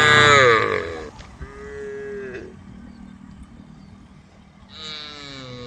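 Cows mooing: a loud moo at the start that falls in pitch, a shorter, softer moo about a second and a half in, and another beginning near the end.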